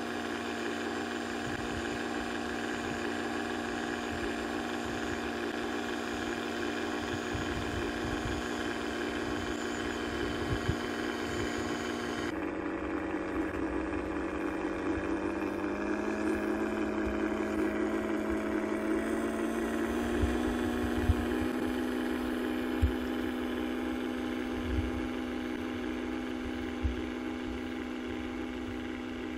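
Motor of a radio-controlled model boat running with a steady pitched tone. The pitch changes abruptly about twelve seconds in, then slowly rises.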